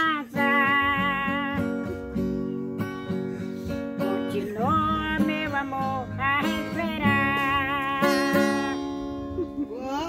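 Acoustic guitar strummed as accompaniment to an elderly woman singing a serenade in long, wavering held notes. The song dies away near the end.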